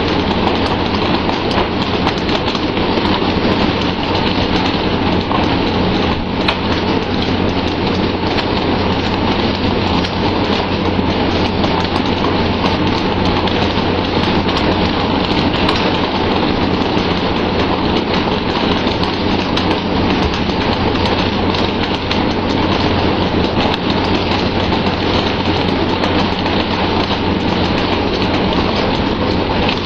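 Steady, loud hiss and splash of water spraying onto the sea alongside a pole-and-line tuna boat, like heavy rain. A steady low hum from the ship's engine runs beneath it, with scattered small knocks.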